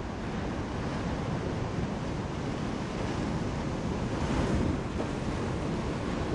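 Ocean surf breaking and washing, with wind noise on the microphone; a wave swells louder about four seconds in.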